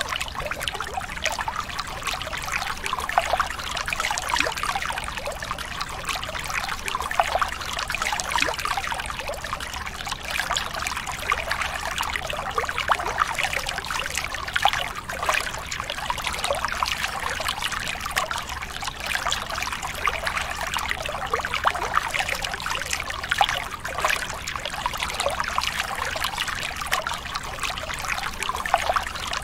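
Running water trickling steadily, with a faint low hum beneath it.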